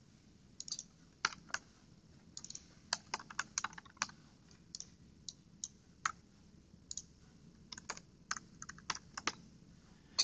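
Faint computer keyboard typing: irregular keystroke clicks in quick runs with short pauses between them.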